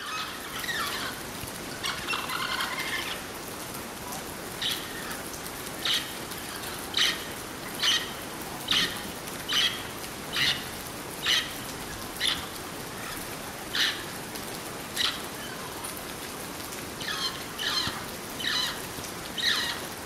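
Parrots calling from a tree: a run of short, harsh calls about once a second, with busier bursts of calling near the start and again near the end, over a steady hiss.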